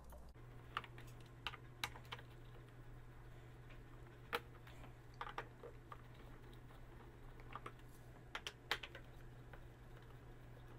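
Faint, irregular clicks and ticks of a Phillips screwdriver turning out the bottom-cover screws of an iRobot Roomba 675, metal tip on screw heads in the plastic housing, over a low steady hum.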